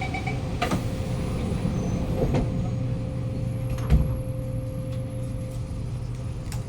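Interior of a Kawasaki Nippon Sharyo C751B metro train standing at a platform: the door-closing chime ends and the doors shut with a sharp knock. A steady tone over the car's low hum follows, with a loud thump about four seconds in and a click near the end.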